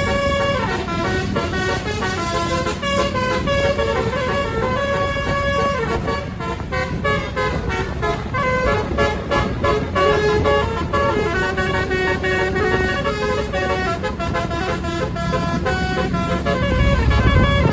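A bus's multi-trumpet 'basuri' musical air horn playing a melody note by note, over a running bus engine that grows louder near the end.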